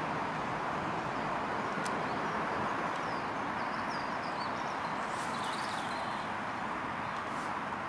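Steady outdoor background noise with a few faint bird chirps between about four and six seconds in, and a light click about two seconds in.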